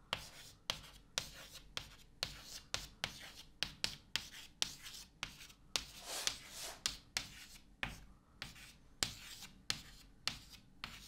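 Chalk writing on a blackboard: a quick, irregular run of sharp taps and short scratchy strokes as symbols are chalked out.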